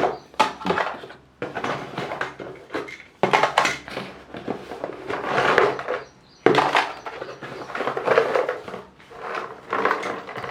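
Plastic toy parts and their packaging being handled and unwrapped: irregular rustling, crinkling and light knocks of plastic pieces.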